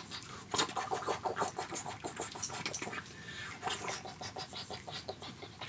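Rapid rustling with light clicks from a doll being dressed: a camouflage cloth jacket pulled and worked onto a 12-inch action figure's arms.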